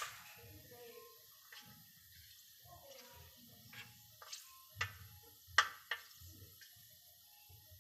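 Hot oil in a steel kadhai crackling with scattered sharp pops as fenugreek seeds temper in it, the loudest pops a little over halfway through.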